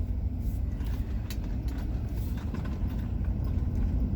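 Steady low rumble of a vehicle, with a few light clicks and taps scattered through it.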